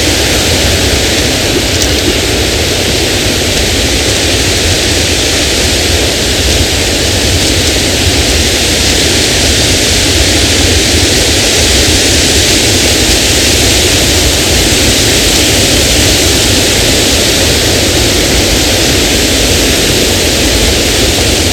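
A waterfall's rushing water: a loud, steady roar with no breaks.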